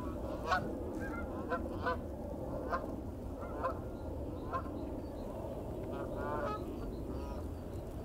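Birds calling: short, repeated pitched calls, several in quick succession at first and sparser later, over a steady low background noise.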